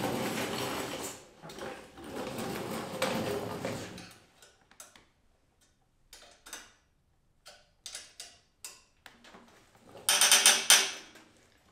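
Handling noise, then small scattered metal clicks as an Allen key is fitted into the set screw of a kart axle's bearing carrier and turned to lock the bearing in place, with a louder rattle about ten seconds in.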